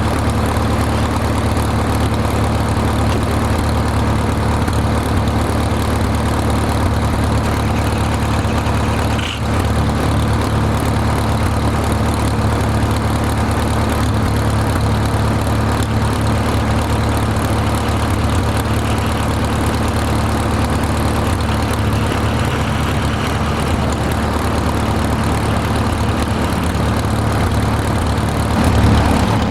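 Farmall M tractor's four-cylinder gasoline engine running steadily, with a brief dip about nine seconds in.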